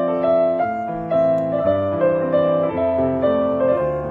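Background piano music: a gentle melody of sustained notes over a steady accompaniment.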